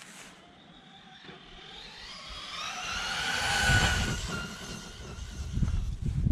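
Brushless electric motor and drivetrain of a 1/10-scale RC monster truck on a 3S battery, whining as it accelerates at full throttle. The whine rises in pitch and loudness, is loudest a little past halfway, then drops slightly in pitch as the truck passes and moves away. Under it, a low, uneven rumble builds and continues to the end.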